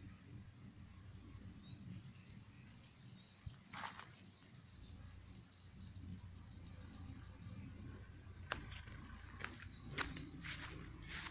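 Insects keeping up a steady high-pitched drone, with a faint, rapidly repeated chirping trill in the middle and again near the end. A few soft knocks of footsteps through grass can also be heard.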